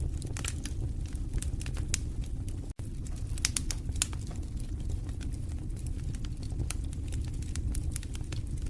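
Wood fire in a fireplace crackling, with irregular sharp pops and snaps over a steady low rumble of the flames. The sound cuts out for a split second about three seconds in.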